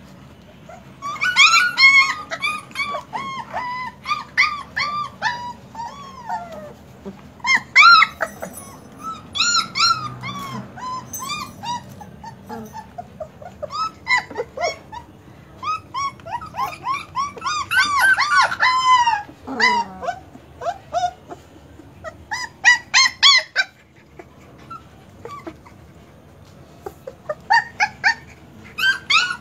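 German Shepherd puppies whining and yelping in clusters of short, high-pitched calls, several a second, with quiet gaps between. About two-thirds through, one longer whine falls in pitch.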